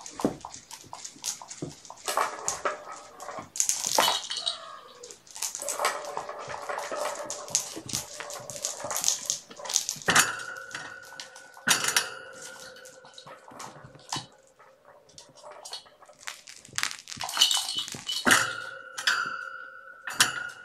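Young kittens mewing while they play, among repeated sharp knocks and clatter; from about halfway, several louder knocks set off a steady ringing tone, as from something metal being struck.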